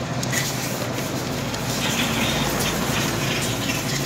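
A vehicle engine running steadily in the background, with a few light clicks.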